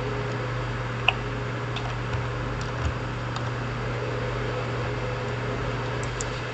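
Steady low background hum and hiss, with a few faint clicks of keyboard keys.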